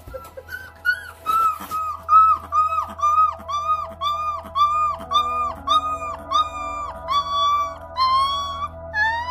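A 22-day-old Lycan Shepherd puppy howling: a run of short, high, rising-and-falling howl notes, about two or three a second, with the last few drawn out longer.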